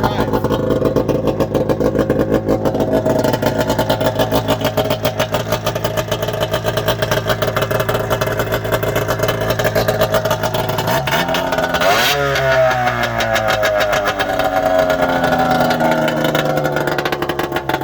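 Arctic Cat ZL440 snowmobile's two-stroke twin engine, freshly rebuilt with a replacement crankshaft, running steadily. About eleven seconds in it is revved up sharply, then winds back down slowly over several seconds.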